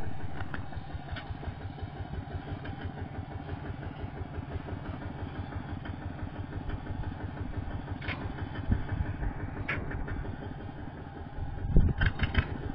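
Small vehicle engine idling steadily with a fast, even beat. There are a few louder knocks near the end.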